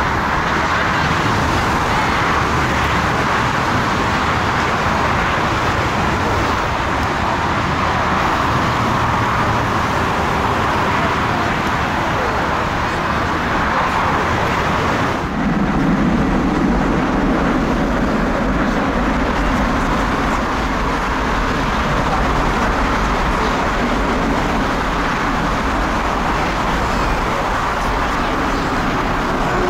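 Boeing 747-400 taxiing on its four turbofan engines at low thrust: a steady jet whine and rumble. About halfway through, the sound changes abruptly to a deeper rumble.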